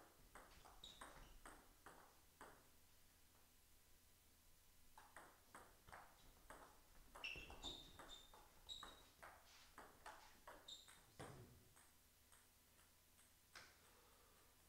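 Table tennis ball being hit back and forth, faint clicks of ball on rackets and table in two rallies: a short one at the start and a longer one from about five seconds in, with a few short high pings among the hits.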